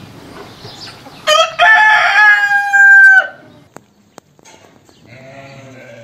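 A rooster crowing once, starting about a second in: a few short opening notes, then a long held note that drops off at the end, about two seconds in all.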